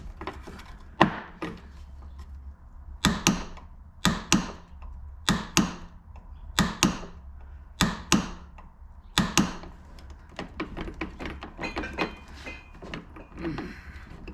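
Click-type torque wrench set to its maximum torque being pulled against a fixed bolt until it breaks over, giving sharp double clicks about once every second or so, six times in a row, with lighter ticking afterwards. This is cycling the wrench to warm up and lubricate its internal mechanism before use.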